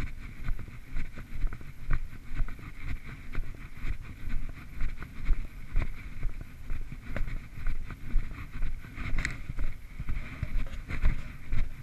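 Footsteps walking on a dirt forest track, thudding about twice a second, with wind and handling rumble on a handheld camera's microphone.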